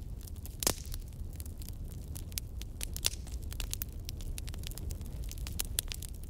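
Steady low rumble with irregular crackling clicks scattered through it, like static; one louder crack about a second in.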